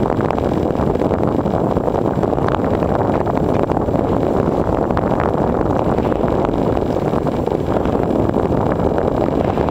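Steady wind buffeting the microphone: a dense, even rush that never lets up.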